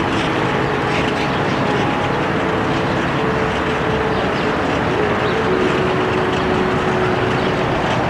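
Steady rushing outdoor background noise with a few faint humming tones that shift in pitch now and then.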